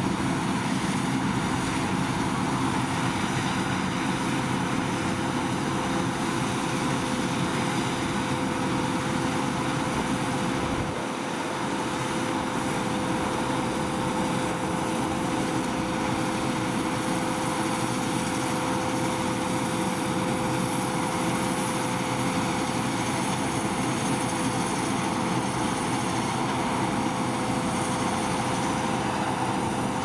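Claas Lexion 650 combine harvester running at work while cutting barley: a steady engine and machinery drone with a constant whine held through it.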